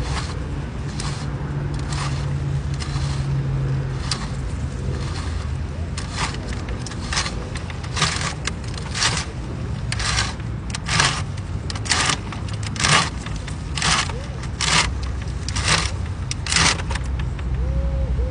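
Model cement mixer truck's drum turning to discharge its load, with a steady low hum. From about six seconds in, a rhythmic scraping click comes roughly once a second as watery chalk-dust slurry runs down the chute.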